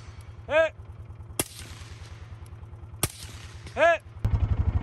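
Two suppressed shots from an AR-15-pattern carbine (Aero M4E1 with a SilencerCo Hybrid 46 suppressor), about a second and a half apart. Each is answered by a short, loud shouted call, one just before the first shot and one about a second after the second.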